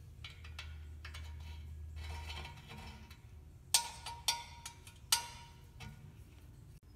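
Small metal clicks of an Allen key working the bolts of a motorcycle's chrome engine cover loose, with three sharp, ringing metal clinks about halfway through.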